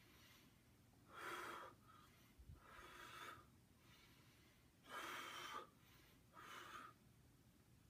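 A person breathing deeply and audibly: four breaths of about half a second each, coming in two pairs.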